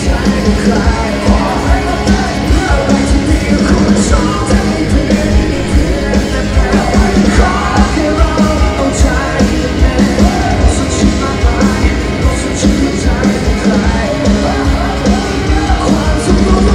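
Live band performance with several singers, including shouted or yelled vocals, over a steady beat, heard from the audience.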